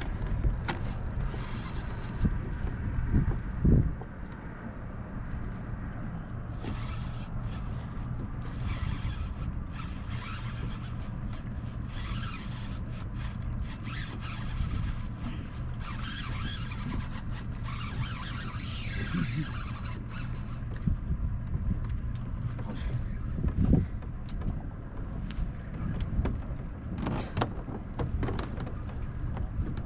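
Wind buffeting the microphone. From about seven to twenty seconds in, a high, steady whine runs above it, wavering up and down near its end.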